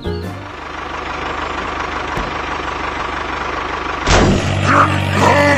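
Tractor engine running steadily at idle; about four seconds in, a louder, deeper engine note cuts in, with a few brief gliding tones over it.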